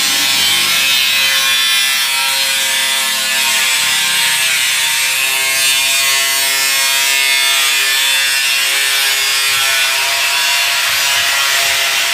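Sandpaper rubbed by hand over dried body filler on a car body panel, a continuous scratchy rubbing, over a steady mechanical hum whose pitch shifts a few times.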